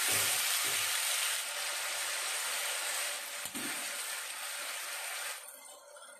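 Beef tripe and onions sizzling in hot oil in a wok, a steady hiss, with a few light spatula knocks as it is stirred. The sizzling stops abruptly about five seconds in.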